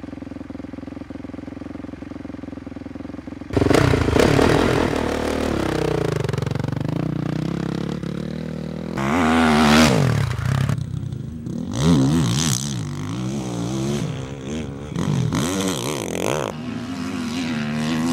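Honda CRF450R single-cylinder four-stroke dirt bike engine: a steady idle-like hum, then from about three and a half seconds in, loud revving with the pitch climbing and dropping again and again as the bike is ridden hard on a test lap. Its mid-range fuel-injection setting is trimmed to 4.5, which the rider finds lets it rev out faster.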